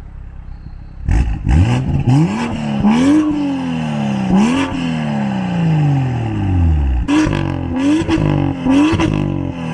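BMW M2's turbocharged straight-six, fitted with a Wagner decat downpipe, revving in a series of quick blips with sharp cracks among them. In the middle one longer rev falls away slowly.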